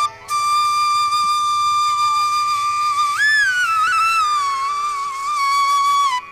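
Background music carried by a single melodic wind-type instrument holding one long note, which bends up and back down about three seconds in.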